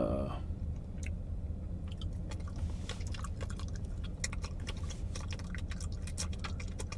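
A man chewing and sucking on something close to the microphone: a run of wet mouth clicks and lip smacks that get busier from about two seconds in, over a low steady hum.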